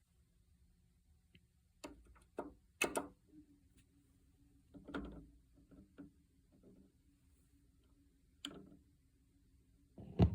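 Quiet, irregular clicks and soft knocks from a record turntable, the loudest near the end, over a faint steady low hum.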